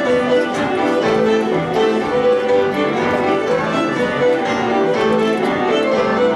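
Fiddle playing a tune in quick, short bowed notes, accompanied by piano chords on a Roland electric keyboard.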